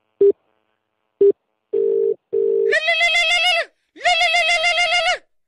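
Telephone call tones: two short beeps, then one double ring of a low-pitched phone ringback tone. Then the called mobile phone rings with two long warbling ringtone notes.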